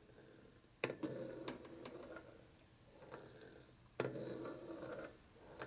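Two sharp clicks about three seconds apart, each followed by about a second of lighter handling noise, as engine parts are handled on the bench.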